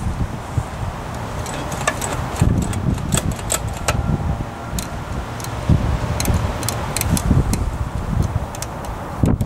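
Scattered metallic clicks and light rattles from hands working on a Tecumseh H30 small engine, over an uneven low rumble of wind on the microphone.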